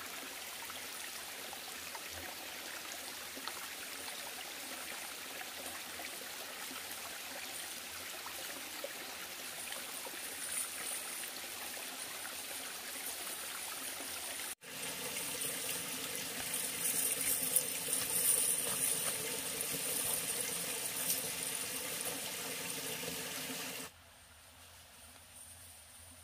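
Shallow stream trickling and running over rocks, a steady rush of water. It steps louder about halfway through with a high, thin steady hum on top, and drops quieter near the end.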